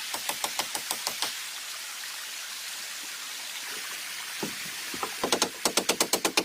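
Rapid sharp knocks, then a steady hiss, then rapid knocks again about five seconds in, at roughly four or five a second.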